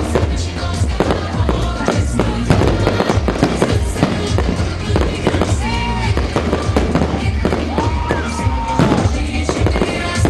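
Fireworks display: shells bursting and crackling in quick succession over music.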